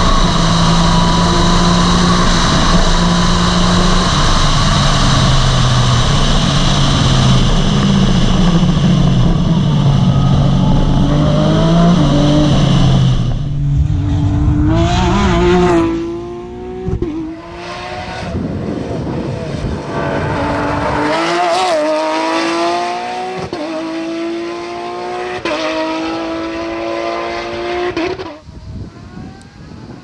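Porsche 911 GT3 Cup race car's flat-six engine at high revs, heard from on board, its pitch stepping down and back up with gear changes. About halfway through it switches to the car heard from the roadside: the engine climbs in pitch again and again as it accelerates through the gears, then falls away near the end.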